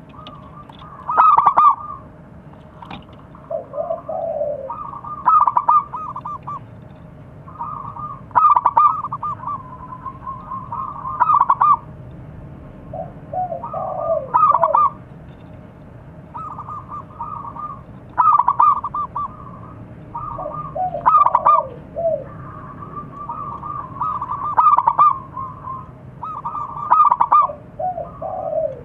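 Zebra dove (perkutut) cooing its staccato song in repeated phrases, one roughly every three seconds, some phrases ending in lower, falling notes.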